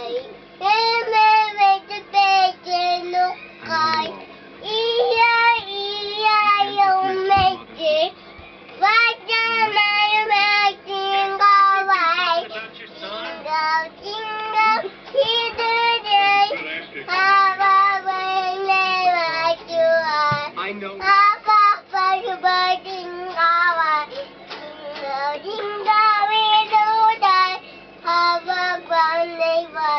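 A young child singing a song, with long held notes between quicker phrases.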